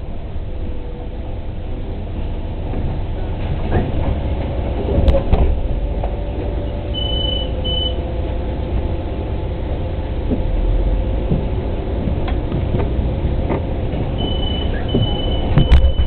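Inside a city bus standing at a stop: the engine idles steadily, with a sharp door clunk about five seconds in. Short high beeps sound around seven seconds and again near the end, where another loud clunk comes, typical of the bus doors' warning chime and door mechanism.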